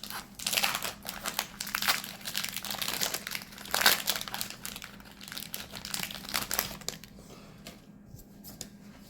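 Foil wrapper of a Magic: The Gathering collector booster pack crinkling as it is handled and opened. The dense crackling stops about two seconds before the end, leaving a faint low hum.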